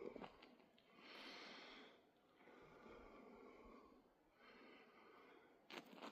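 Faint breathing of a hiker on the move, slow breaths in and out about every second and a half, with a sharp click near the end.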